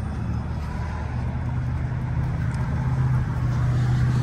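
Land Rover LR2's 3.2-litre inline-six idling steadily, a low hum that grows slowly louder.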